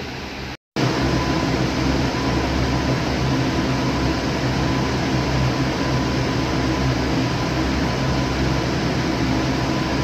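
Steady drone of running air-conditioning equipment: an even fan rush with a low motor hum and a faint steady whine. It drops out to silence for an instant just after the start.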